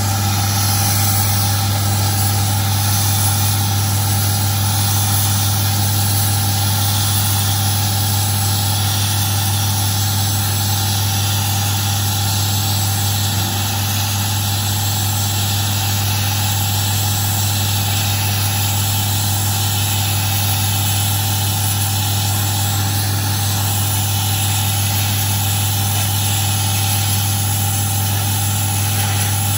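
Pressure washer running steadily with an even, loud hum, its lance jet spraying water onto slate paving slabs. The washer is said to be down on power.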